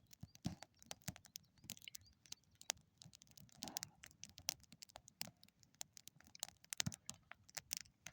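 Campfire crackling, with many irregular sharp pops and snaps of burning wood, some of it damp.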